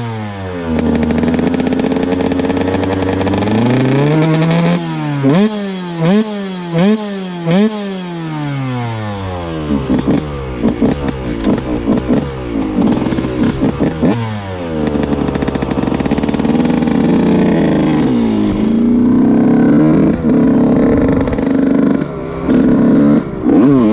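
A 125cc two-stroke dirt bike engine revving hard. It gives a run of quick throttle blips that climb and drop, then holds high revs for a few seconds and blips again near the end.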